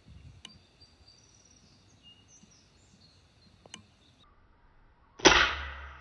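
A PCP air rifle fires a single shot about five seconds in: a sudden sharp crack that dies away within a second.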